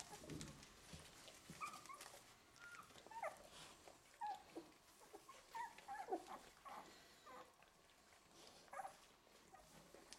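Eleven-day-old golden retriever puppies squeaking and whimpering faintly: many brief high squeaks scattered throughout, several falling in pitch.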